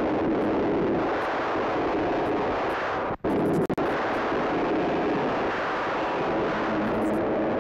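Film soundtrack of a car driving at speed: a loud, dense, steady engine-and-road noise. It drops out briefly twice about three seconds in.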